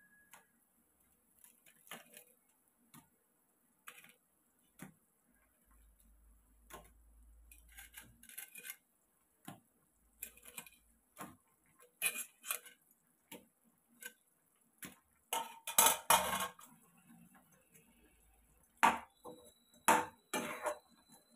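Spatula knocking and scraping against a nonstick kadai as bread slices are turned in hot, sizzling frying fat. The knocks come in irregular clusters, busiest and loudest about three quarters of the way through, over a faint steady sizzle.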